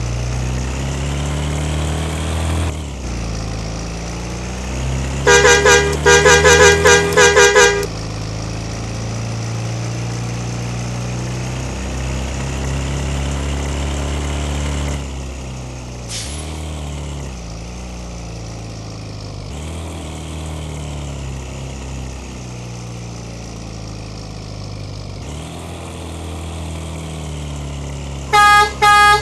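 Bus engine running and pulling through the gears, its pitch climbing and dropping back several times. A telolet (basuri) multi-tone horn plays a fast, loud run of notes for about two seconds, about five seconds in, and starts again near the end.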